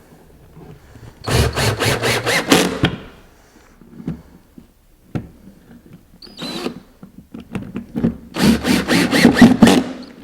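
A power drill drives pocket-hole screws that draw the cabinet's face frame tight to the box. It runs in two bursts of about a second and a half, one near the start and one near the end, each pulsing evenly about four times a second, with small clicks of handling in between.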